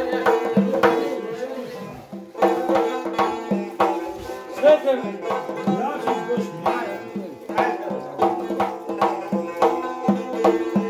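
Folk music played on a large hide frame drum, beaten in a steady rhythm, with a plucked long-necked lute playing sustained notes over it. The music dips briefly about two seconds in.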